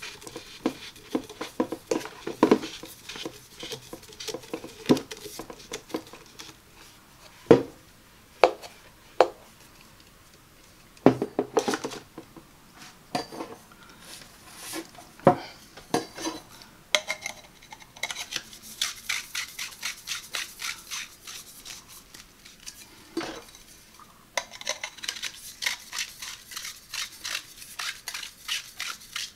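Knocks and clatter of plastic broom and dustpan parts and handle tubes being picked up and set down. Then two long runs of quick, dense ticking as the threaded broom-handle sections are screwed together.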